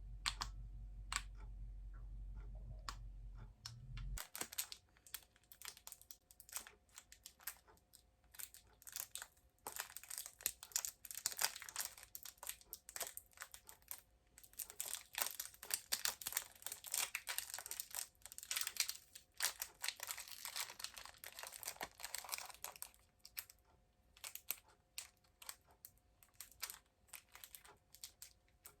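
Crinkly plastic being handled: many small clicks and crinkles, densest through the middle. A low steady hum cuts off about four seconds in.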